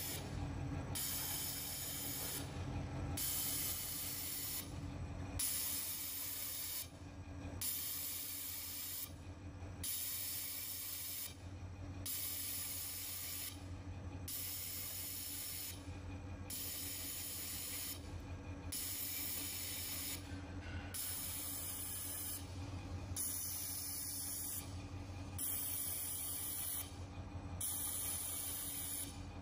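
Automatic fiber laser welder welding stainless steel sheet: a hiss from the weld and its gas flow that comes on for about a second and a half and stops briefly, repeating about every two seconds, one burst per ring-shaped weld spot. A steady low machine hum runs underneath.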